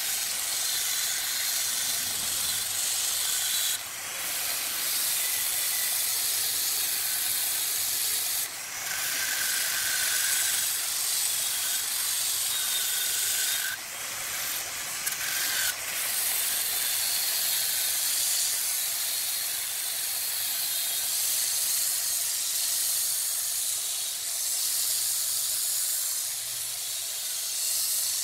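Angle grinder with a sanding disc sanding a wooden vase as it spins on a wood lathe: a steady abrasive hiss, broken a few times by short dips where the disc comes off the wood.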